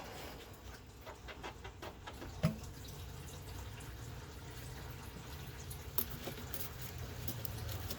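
Engine coolant trickling and dripping out of the radiator. A few light clicks and a sharper knock about two and a half seconds in come from working the radiator hose loose.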